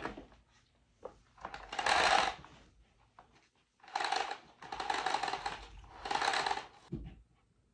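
Power cord being pulled off an upright vacuum cleaner's cord hooks: four scraping pulls, each under a second.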